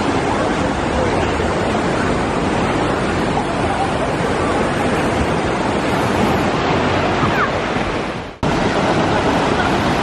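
Wave-pool surf: a steady rush of artificial waves breaking and washing through the shallows, with faint voices of swimmers mixed in. The sound fades and cuts out for an instant a little past eight seconds in, then resumes.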